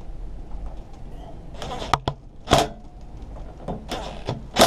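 A handful of sharp clicks and knocks of a hand tool and parts being handled as a carburetor is fitted to a Tecumseh lawnmower engine. They start about two seconds in, with the loudest halfway through and another near the end.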